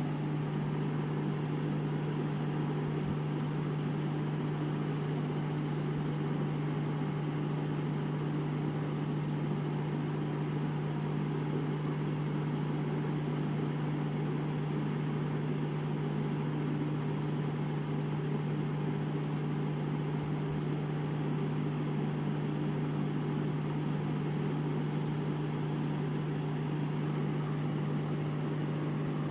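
Aquarium air pump humming steadily at one low pitch, with air bubbling up through the tank's sponge filter and air tubes.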